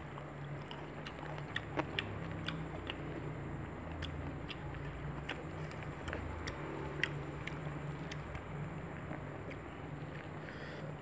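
A person chewing food close to the microphone, with scattered small mouth clicks and smacks over a steady low hum.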